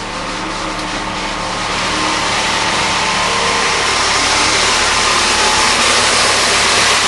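1997 Chevrolet Cavalier Z24's 2.4 L twin-cam four-cylinder idling on its first cold start after a timing chain and water pump replacement, running smooth with a steady rushing hiss that grows louder over the first couple of seconds, then holds.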